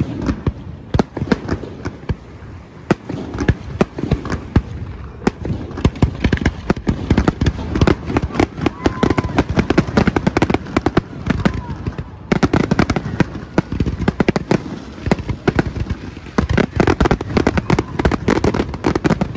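Aerial fireworks shells bursting in rapid, overlapping bangs and crackles. They grow denser about six seconds in, into a near-continuous barrage.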